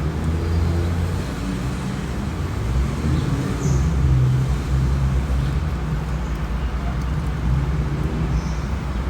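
A motor vehicle's engine running, a steady low hum whose pitch shifts slightly, with road noise.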